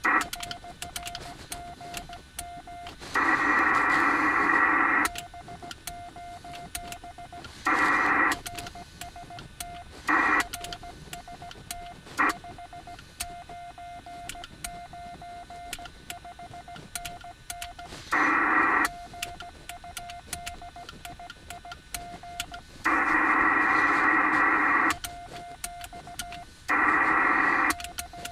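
Yaesu FT-897 ham transceiver's speaker receiving on the 40-metre band: steady band hiss with a thin steady tone, broken about seven times by loud bursts of rushing noise lasting from half a second to two seconds.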